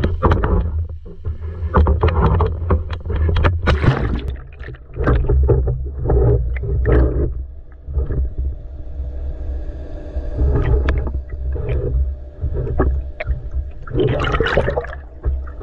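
Water rushing and bubbling over a camera held underwater, in irregular surges, over a steady low hum.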